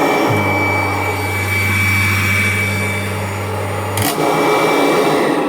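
1994 Kirby Generation 4 upright vacuum cleaner running steadily with a high, even whine. About four seconds in, a sharp click comes as a low hum drops out, while the vacuum keeps running.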